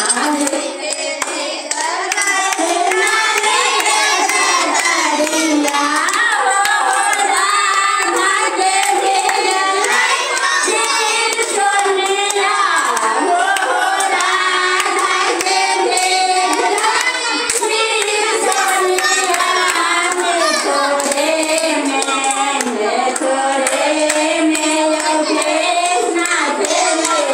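Women and children singing a devotional song together, led by a woman singing into a handheld microphone; the melody wavers and runs without a break.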